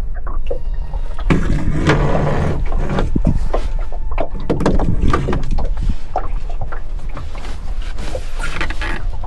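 Wind rumbling on the microphone, with water lapping and slapping against a small boat's hull in many short, irregular splashes.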